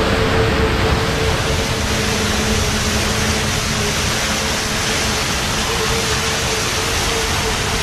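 Plaza fountain's many small water jets splashing into their basin, a steady, even rush of water.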